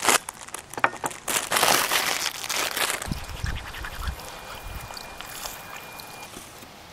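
Plastic packaging crinkling and rustling as it is handled, then a few soft low thumps about three seconds in.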